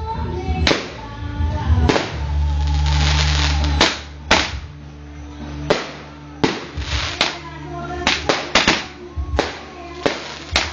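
Fireworks and firecrackers going off in an uneven string of about a dozen sharp bangs, with a hissing rush about two seconds in. Music plays throughout, and voices are heard.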